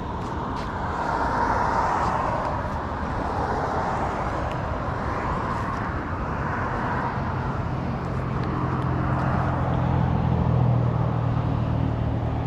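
Road traffic passing by, the tyre noise of cars swelling and fading one after another, with a heavier vehicle's low engine hum building from about eight seconds in.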